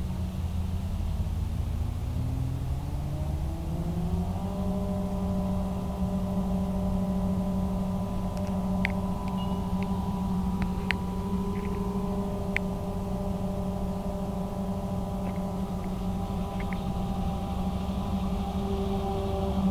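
Self-propelled forage harvester running as it chops standing maize, a steady whining drone. Its pitch rises over the first four seconds or so and then holds steady. A few faint ticks come in the middle.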